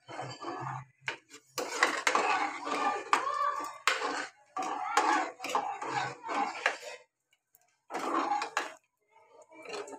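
Steel spoon scraping and clinking against the inside of an aluminium pressure-cooker pot while stirring thick ragda, in several stretches of scraping with a short break about seven seconds in.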